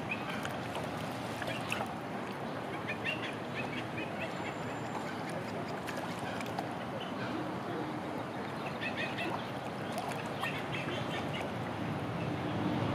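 Lakeside ambience: a steady background of low noise with scattered short, high calls of waterbirds coming in small clusters several times.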